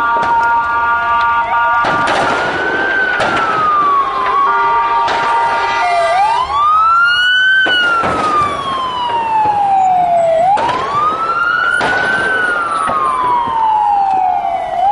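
Emergency vehicle siren wailing, its pitch rising and falling slowly about every four seconds. For the first five seconds or so a second siren holds a steady tone beneath it.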